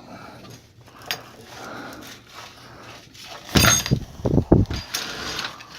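Metal washer parts being handled: a single click about a second in, then a run of loud clunks and rattles as parts are moved and set down.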